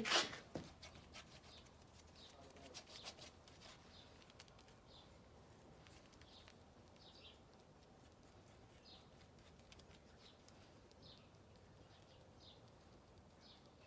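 Very quiet background with faint, short, high-pitched animal calls repeating about once a second from about four seconds in, and a few soft clicks in the first seconds.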